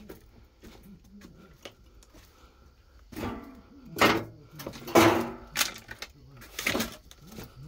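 A person clambering over loose brick rubble and debris: small scuffs and clicks, then several loud scraping, crunching bursts in the second half.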